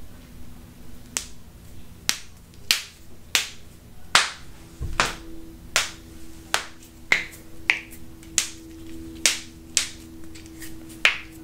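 Finger knuckles cracking one after another: a run of about fifteen sharp pops, roughly one every half to three-quarters of a second.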